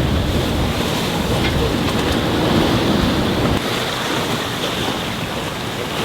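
Wind buffeting the microphone over the rush of waves and water on a sailboat under sail in choppy seas. The low wind rumble eases a little over halfway through.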